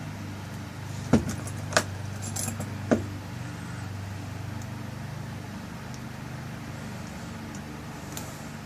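Small metal clicks and taps from a lock cylinder's parts as the tail piece is fitted and screwed back on: three sharp clicks within the first three seconds and a few lighter ticks among them, then only a steady low hum.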